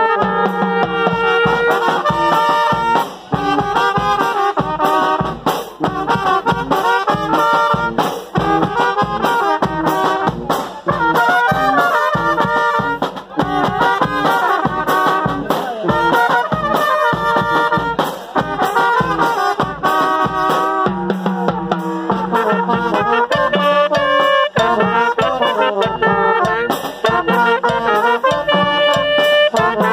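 Brass band music with several horns playing a melody over a steady drum beat.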